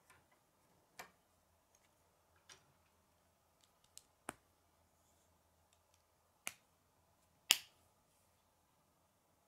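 K'nex plastic rods and connectors snapping together by hand: about six sharp clicks at uneven intervals, the loudest one about two-thirds of the way through.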